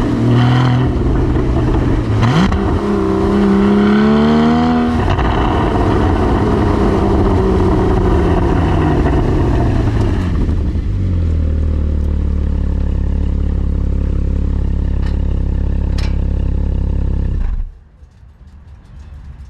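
Porsche Cayman GT4 981's 3.8-litre flat-six engine rising in pitch under acceleration, then falling away slowly and settling into a steady low drone. It stops abruptly near the end.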